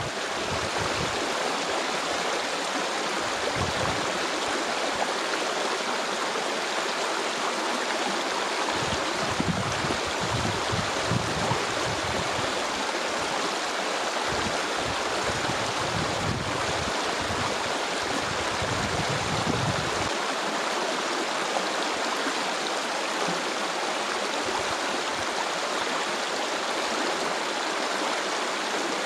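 Stream water rushing steadily. Gusts of wind rumble on the microphone now and then in the first two-thirds, then stop.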